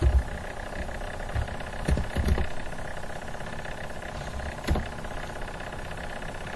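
A steady mechanical hum with several even tones layered in it, like a running motor or fan. A few soft low knocks come through it, the clearest nearly five seconds in.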